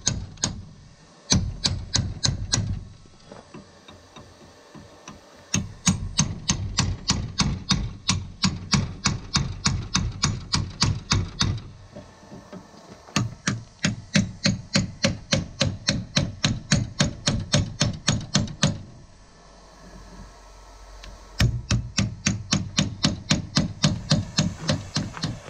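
Rapid hand-hammer blows on steel clamped in a bench vise, about five ringing strikes a second. The blows come in four runs of a few seconds each, with short pauses between.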